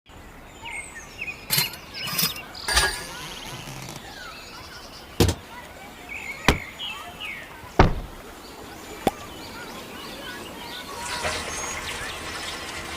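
A series of sharp knocks or clicks, irregularly spaced, the loudest about eight seconds in, over faint bird chirps; a soft hiss builds near the end.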